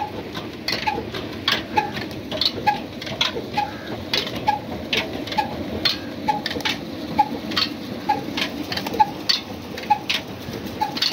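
Old Ruston Hornsby single-cylinder horizontal diesel engine running at slow, steady speed, its flat belt driving a tubewell water pump. An even beat comes about every 0.6 s over a steady rumble, with sharp clicks in between.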